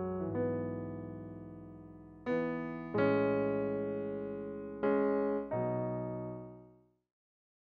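Electric piano playing slow, sustained chords, a new chord struck every second or so and each ringing out and decaying, fading to silence about seven seconds in.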